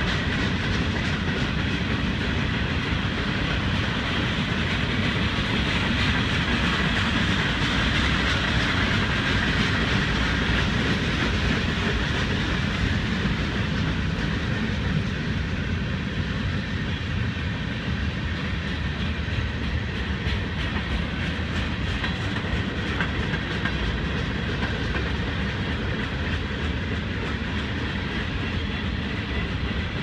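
Freight train's covered hoppers and tank cars rolling past close by, their steel wheels running on the rails in a steady rumble that holds at the same level throughout.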